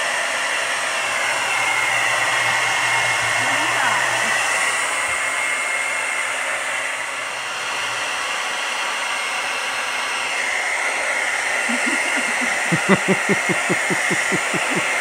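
Hair dryer blowing steadily with a high motor whine, used to defrost the iced-up freezer evaporator.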